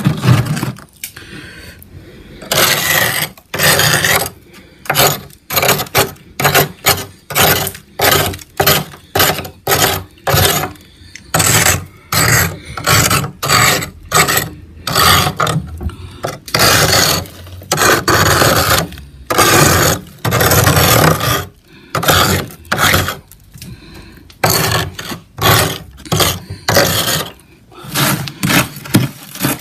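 Metal spoon scraping built-up frost off freezer walls in repeated short rasping strokes, about one to two a second at an uneven pace, close to the microphone.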